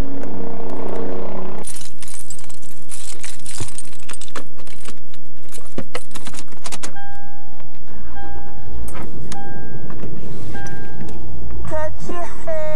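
Keys jangling, followed by a car's electronic warning chime beeping several times about once a second. Music with singing starts near the end.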